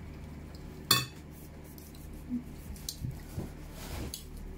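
Cutlery and dishes clinking during a meal: one sharp clink about a second in, then several lighter clinks and taps.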